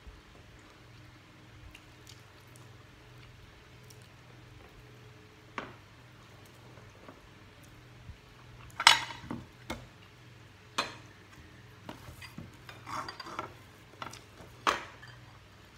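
Metal spoon and fork clinking and scraping against ceramic plates and a bowl: a few scattered clinks, then a cluster of sharp clinks about halfway through, the loudest near the middle, over a low steady hum.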